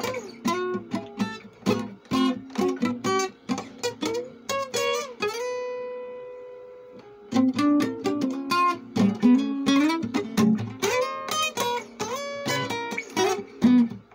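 Acoustic guitar played in a boogie-woogie blues style: quick runs of plucked notes, a few of them sliding up in pitch. About five seconds in, one note is left ringing and fading for about two seconds before the playing starts again.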